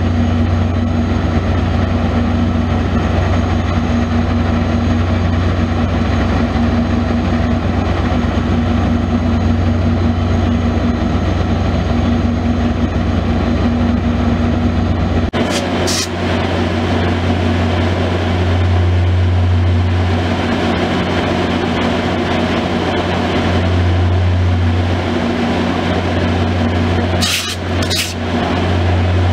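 VIA Rail EMD F40PH diesel locomotives standing and running, a steady loud engine drone with a deep hum. The drone changes character abruptly about halfway through, and a few short hisses come near the middle and near the end.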